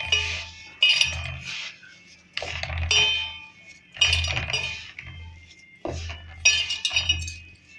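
Hand mixing a semolina mixture in a stainless steel bowl: the bowl clinks and rings in repeated strokes, about one every second and a half, each with a low knock.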